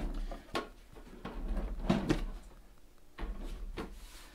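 Handling noise from a plastic evaporative air cooler: a scattered series of knocks and clicks as the unit is moved and its casing handled.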